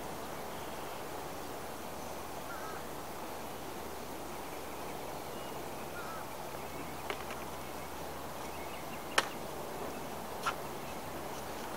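Steady outdoor background noise with a few sharp clicks in the second half, the loudest a little past nine seconds in.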